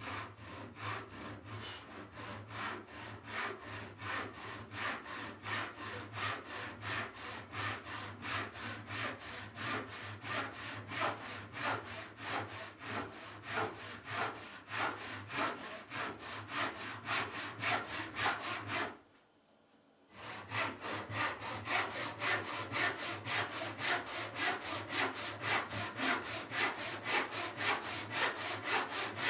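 Wooden-handled backsaw cutting a pine board by hand, in steady back-and-forth strokes of about three a second. The strokes stop for a moment about two-thirds of the way in, then resume at the same pace.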